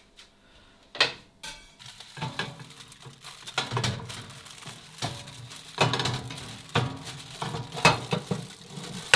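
A foil-wrapped pizza being slid out of an oven onto a ceramic plate with a metal pizza server: scraping and crinkling of the aluminium foil, with irregular clinks of metal on the oven rack and plate. A sharp clack comes about a second in.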